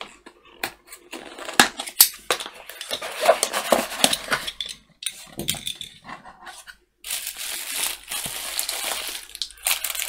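Cardboard shipping box slit open with a utility knife and its flaps pulled back, a run of sharp clicks and scrapes. From about seven seconds in, plastic bubble wrap crinkles steadily as it is handled.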